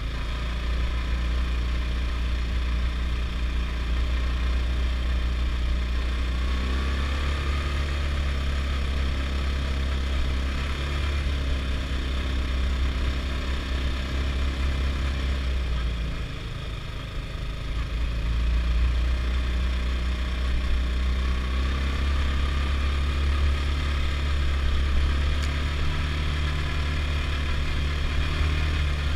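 Adly Hurricane 320 quad's engine running under way, with a brief easing of the throttle a little past halfway and then picking up again.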